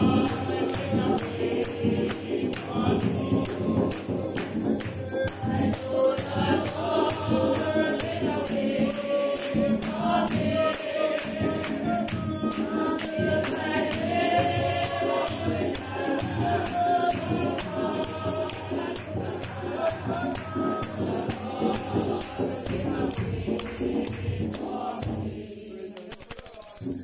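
Congregation singing a hymn together, accompanied by a tambourine shaken and struck in a steady beat. The singing dies away near the end.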